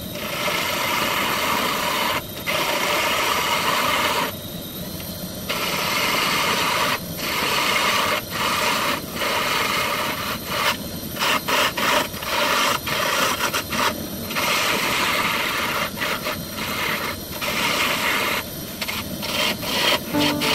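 Wood lathe running while a hand-held turning tool cuts a spinning wooden blank, a loud, steady scraping hiss of shavings coming off. It breaks off again and again in short pauses as the tool is lifted and set back on, with longer pauses about two and four seconds in and more frequent ones in the second half.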